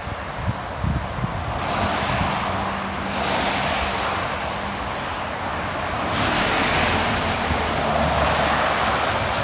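Traffic on the dam highway: a steady hiss of tyres on wet asphalt that swells a few times as vehicles pass, with a faint engine hum in the middle. Wind buffets the microphone in the first second or so.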